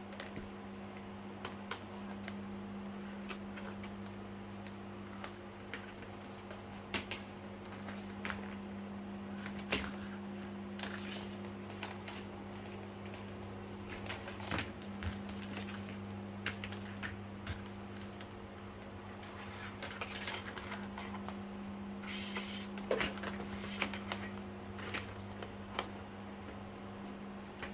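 Scattered small clicks and taps of hands working fiber-optic splicing equipment, over a steady low electrical hum, with a brief hiss a little past the middle.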